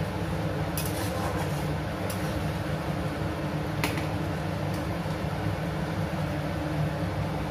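A steady low hum and hiss, with a steel spatula clinking against a steel kadhai a few times as Maggi noodles are stirred.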